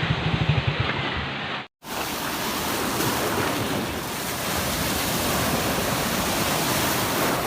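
An engine runs with a fast, even pulse for the first second and a half. After a sudden cut, sea surf and wind noise on the microphone follow as a steady, even rush.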